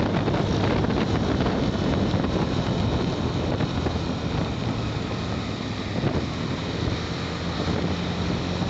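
Motorcycle engine running steadily at low speed, with wind noise on the rider's microphone.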